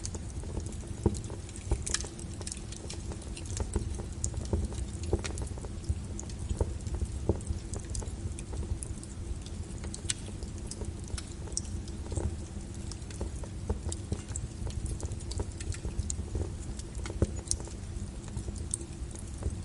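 Burning wood in a fireplace crackling: irregular snaps and pops, several a second, with a few louder pops, over a low steady rumble.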